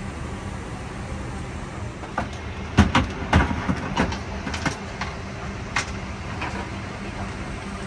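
Steady low hum of an airliner cabin's ventilation at the gate. From about two to six seconds in, a run of sharp knocks and clatter sounds over it, loudest around three seconds in.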